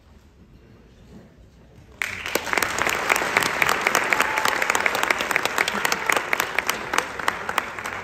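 Audience applauding: dense clapping starts suddenly about two seconds in, after a quiet moment, and carries on, easing slightly near the end.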